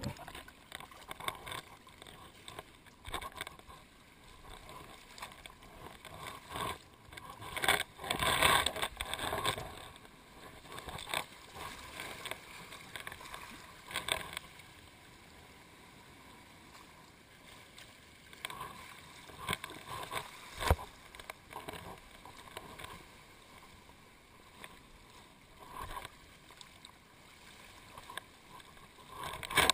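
Sea water sloshing and washing over rocks at the waterline, heard by a camera that is partly submerged at times, which muffles it. The splashing swells irregularly, with quieter stretches between, and there is a single sharp knock about two-thirds of the way through.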